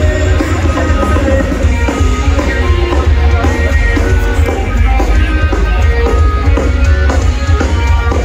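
Live rock band playing loud through a festival PA, heard from the crowd: distorted electric guitar and a driving drum kit over a heavy, booming low end.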